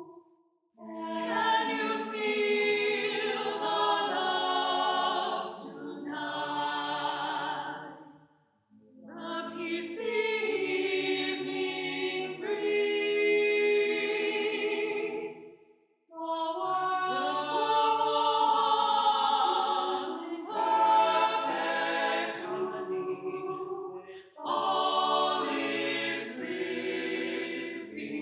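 Mixed-voice a cappella octet, four men and four women, singing in close harmony, in about four phrases of several seconds each with short breaks between them.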